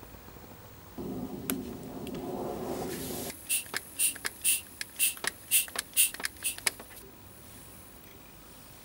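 Mityvac MV8500 hand vacuum pump being squeezed a dozen or so times in quick succession, each stroke a short, sharp hiss of air, drawing vacuum in the brake-bleeding catch bottle before the bleed screw is opened. Before the pumping, a rough scuffing noise of the pump and hose being handled.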